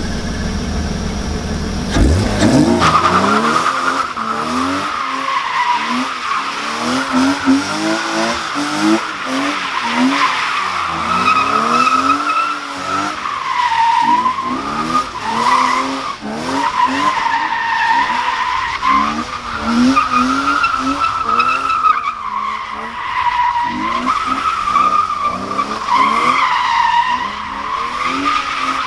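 BMW E36 with an M52 straight-six drifting on wet asphalt: the tyres keep up a long, wavering squeal while the engine revs up and down again and again. The engine revs up sharply about two seconds in, and the squeal starts there.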